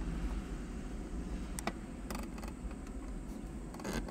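Distant road traffic driving over a railroad grade crossing: a low, steady rumble with a few faint clicks.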